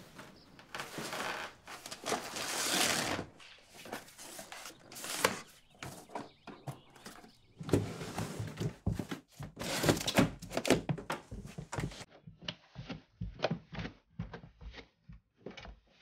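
Cardboard vinyl record sleeves being handled and flipped through: irregular rustling and sliding with soft thunks. About twelve seconds in, this gives way to a run of short, separate knocks.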